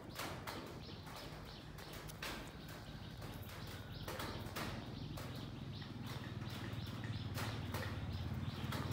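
Scattered light clicks and taps of a wristwatch being handled, with a low hum growing louder over the last few seconds.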